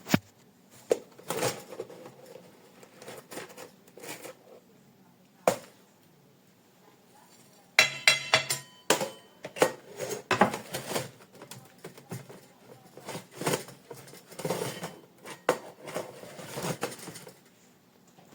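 Kitchenware being handled: a series of knocks, clinks and clatters, with a burst of ringing metallic clinks about 8 seconds in.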